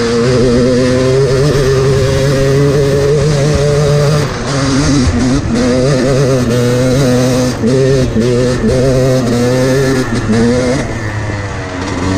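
Yamaha YZ250X two-stroke dirt bike engine pulling uphill under throttle, its pitch wavering as the throttle is worked, with short drops about four seconds in and again near eight seconds.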